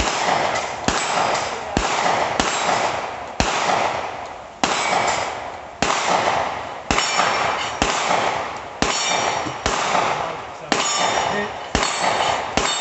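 A steady string of single gunshots, about one a second, fired at steel targets. Thin ringing tones follow several of the shots as the steel plates are hit.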